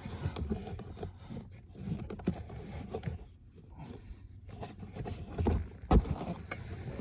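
Hands scraping and rustling in a car's cabin air filter housing, clearing out debris, with a few light knocks and one sharper knock about six seconds in.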